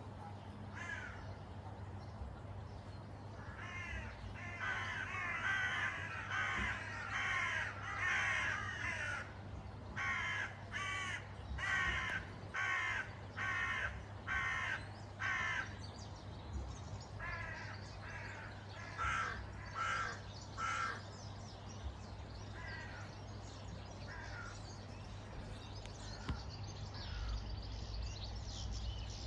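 A group of crows cawing over and over in bouts, several calls overlapping at first, then a run of single caws in quick succession, then fewer and fainter calls.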